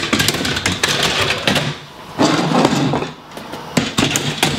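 A particle-board drawer being slid into a cabinet on roller drawer rails: rolling and scraping with sharp clicks and knocks, in about three spells.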